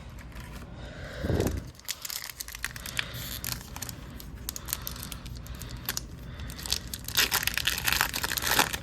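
Foil trading card pack being torn open and crinkled, with thin crackling rustles that are densest near the end. A short low whoosh comes about a second and a half in.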